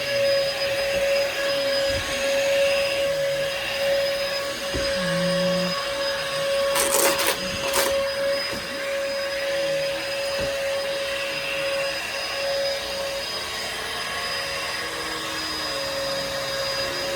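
Bissell upright vacuum cleaner running steadily with a constant motor whine, and a brief crackling rattle about seven seconds in.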